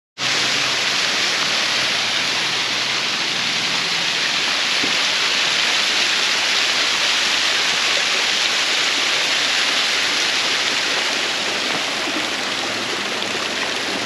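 Small waterfall running in thin streams down mossy rock ledges: a steady, even rush of falling water.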